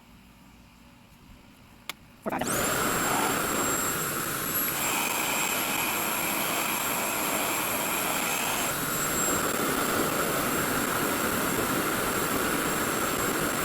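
RevAir reverse-air hair dryer switched on on high heat: after a short click its suction fan starts about two seconds in and runs loudly and steadily, a rush of air with a high whine over it.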